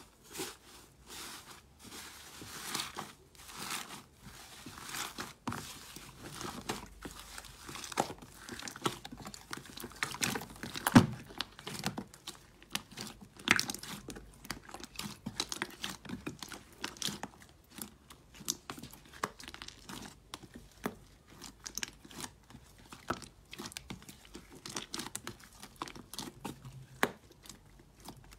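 Blue slime being pressed, torn and kneaded by hand in a plastic tub, giving an irregular run of small crackles, squelches and pops. The loudest pop comes about eleven seconds in.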